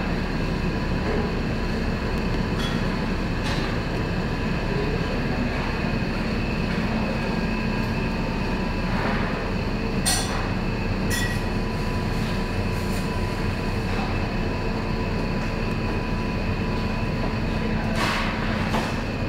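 Steady mechanical rumble with a constant hum, unbroken throughout, with a few brief clicks, the loudest about ten seconds in and another near the end.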